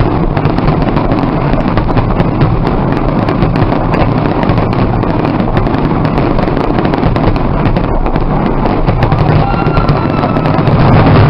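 Aerial fireworks shells bursting in quick succession: a dense, continuous barrage of overlapping bangs and crackles, growing a little louder near the end.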